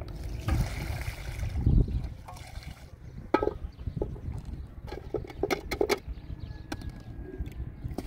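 Water and kitchenware being handled at a water tank: a noisy stretch of sloshing and handling noise at first, then a cluster of sharp clinks and knocks of pots and dishes between about three and six seconds in.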